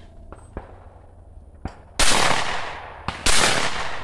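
Two shotgun shots at a pair of sporting clays, about a second and a quarter apart, each followed by a long fading echo.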